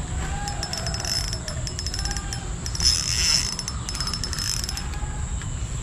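Shimano Sienna 1000 FG spinning reel giving runs of rapid clicking and ratcheting while a hooked hampala is fought, the ticking densest about three seconds in. A steady low river rush runs underneath.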